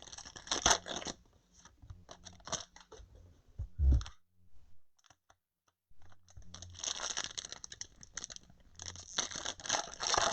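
Foil trading-card pack wrappers crinkling and tearing as packs are opened, with the cards being handled, in irregular spurts with a pause of about two seconds midway.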